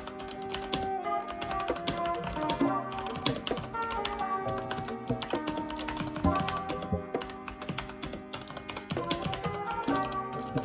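Rapid typing on a T-Dagger Bora mechanical keyboard with tactile Outemu Brown switches: a quick, uneven run of key clicks over background music.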